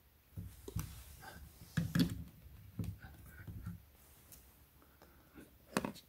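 Faint, scattered taps and soft knocks of a smartphone being handled and its touchscreen tapped, with a sharper click near the end.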